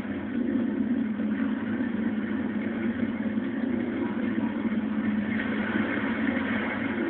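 A steady, continuous low drone with a hiss above it, engine-like, unchanging throughout.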